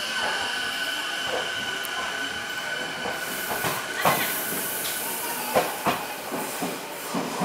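Electric commuter trains standing at a station platform, giving off a steady high-pitched whine. A few sharp clunks come about four and six seconds in.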